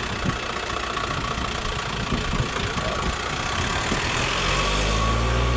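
A motor vehicle engine running steadily, over a constant background rush. A deeper engine hum comes in and grows louder about four seconds in.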